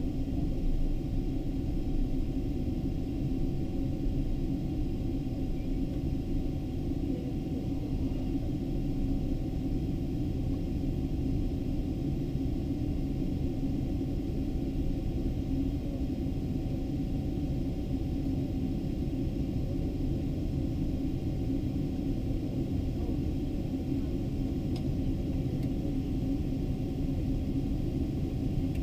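Steady low rumble and hum of a Boeing 777-200's engines at taxi idle, heard from inside the passenger cabin as the airliner rolls slowly along the ramp.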